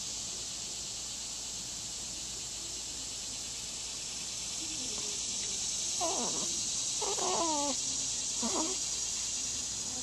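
Newborn baby making three short, squeaky, wavering vocal sounds about six to nine seconds in, over a steady hiss.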